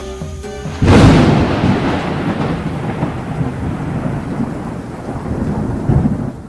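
Music for under a second, then a loud thunderclap breaks in and rolls on as a long rumble with a rain-like hiss, swelling again briefly near the end.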